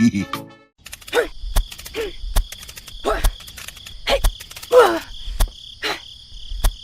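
Insects, crickets by their steady high trill, chirring throughout. Irregular sharp clicks cut across it, some with a short chirp that falls in pitch.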